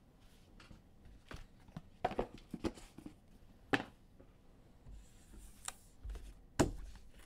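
Trading cards and their packaging being handled: scattered soft rustles and clicks, with three sharper taps spread through.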